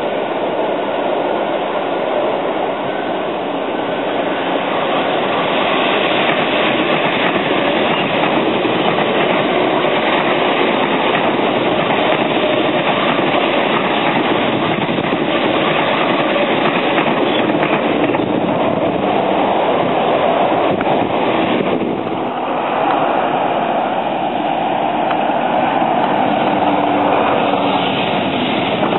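East Rail Line electric train running past on the tracks, a steady loud rolling noise from its wheels on the rails.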